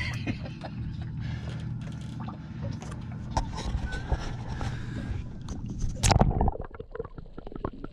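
Low rumble of water slopping around a small boat while a spinning rod and reel are worked against a heavy fish, with scattered clicks and knocks of handling. A louder burst of knocking comes about six seconds in.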